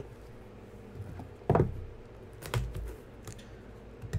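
Small cardboard trading-card boxes being handled on a table, giving a few separate soft knocks and scrapes, the loudest about one and a half seconds in.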